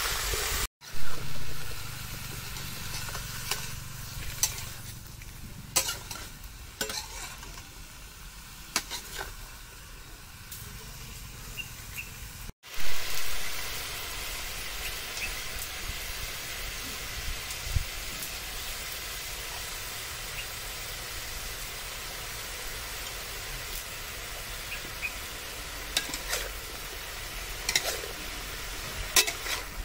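Cauliflower and greens sizzling in a hot metal wok while a metal spatula stirs and scrapes them, with scattered clinks of the spatula against the pan. The sound drops out briefly twice, about a second in and near the middle, each time followed by a loud knock.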